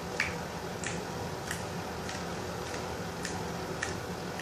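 Homemade Elmer's glue slime being poked and pressed, giving a series of short, sharp clicking pops, about seven of them, roughly one every half second or so: the satisfying sound of the slime.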